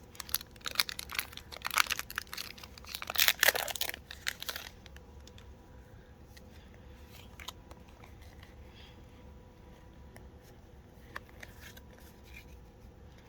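Foil wrapper of a Pokémon booster pack crinkling and tearing as it is opened, for about the first four and a half seconds. After that there are only a few faint ticks of handling.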